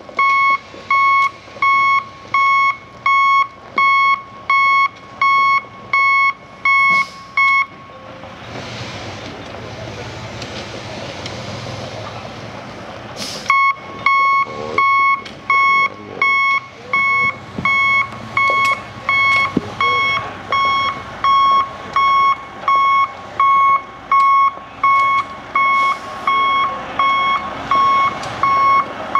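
Backup alarm on heavy construction equipment beeping steadily, a little over once a second, over machinery noise. The beeping pauses for several seconds while a louder rush of machine noise swells, then a sharp knock comes and the beeping starts again.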